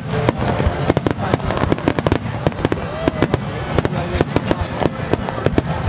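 Aerial fireworks shells bursting overhead: a dense, irregular run of sharp crackling pops, several a second, over a continuous low rumble of booms.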